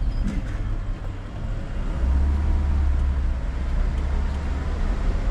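Car driving slowly: a steady low rumble of engine and road noise that grows stronger about two seconds in, with a few faint clicks near the start.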